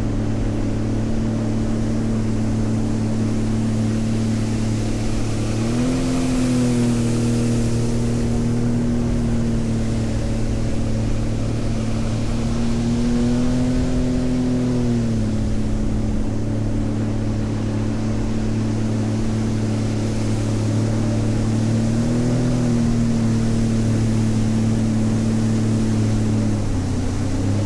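Sea-Doo Explorer Pro 230 personal watercraft running steadily under way, its Rotax three-cylinder engine holding an even note over the hiss of water along the hull. The engine pitch rises briefly with more throttle three times, about a quarter, half and four-fifths of the way through.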